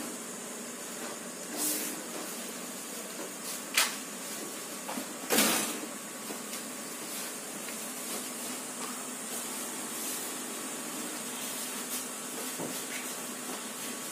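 Disinfectant pump sprayer giving short hissing bursts, three in the first half, over a steady high background hiss.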